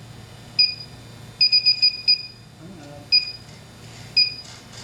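Inficon D-TEK Select refrigerant leak detector beeping, short high electronic beeps about once a second. About a second and a half in, the beeps quicken briefly into a run of five rapid beeps.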